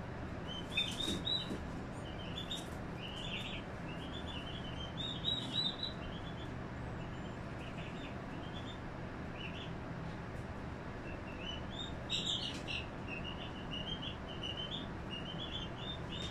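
Small birds chirping in short, high, repeated bursts, a few louder clusters among them, over a faint steady low hum.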